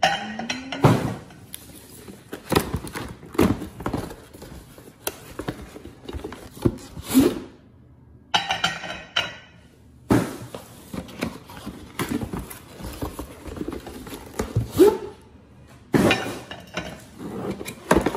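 Cardboard gift boxes of dinner plates being handled on a hard tabletop: irregular thumps, knocks and scrapes as the boxes are moved, set down and opened.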